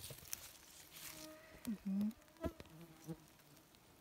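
Flying insects buzzing close by in short passes, loudest about two seconds in, with a couple of faint clicks.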